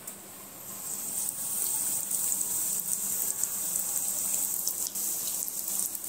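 Breadcrumb-coated fish fingers deep-frying in hot oil in a wok: a steady sizzle with many small crackles, swelling about a second in as a piece goes into the oil.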